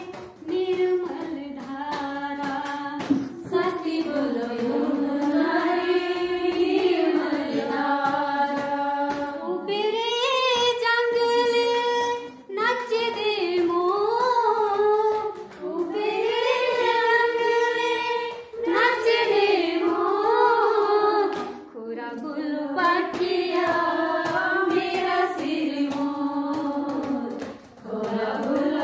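A woman singing a Himachali folk song solo, in long held, gliding notes, with brief pauses for breath between phrases.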